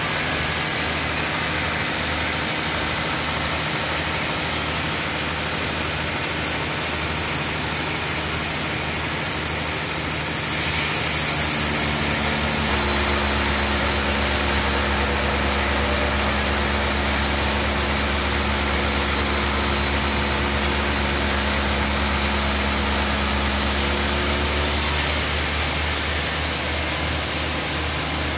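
Large wood band sawmill running steadily with a mechanical hum while the log is positioned, not cutting. About twelve seconds in, a heavier, lower hum comes in and lasts some twelve seconds before dropping back.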